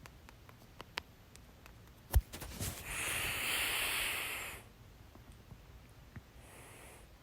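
A woman's single sharp hiccup about two seconds in, followed by a long breathy exhale lasting about two seconds. Faint clicks of the mouth and throat come between them.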